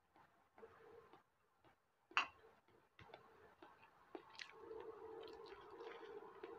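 Faint sounds of hands wrapping a lettuce leaf around a sausage on a plate: soft rustles and small ticks, with one sharp click about two seconds in. A faint steady hum comes in over the last two seconds.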